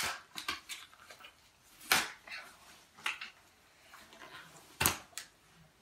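Plastic toy packaging being handled and pulled at while the toys are worked free: scattered clicks and crinkles, with two sharp snaps about two seconds and about five seconds in.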